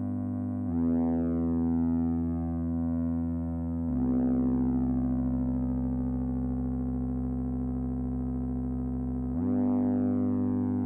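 Analog synthesizer drone: a sustained, buzzy chord over a steady held tone. The bass note changes three times, and each change comes with a filter sweep that opens bright and slowly closes again.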